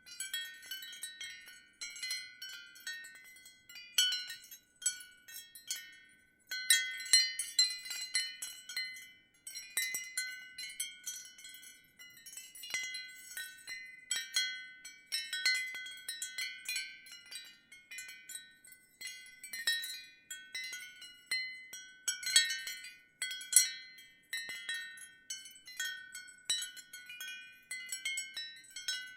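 Ceramic wind chimes tinkling lightly in a gentle breeze: irregular clusters of high, clear strikes that ring on, with brief lulls between gusts.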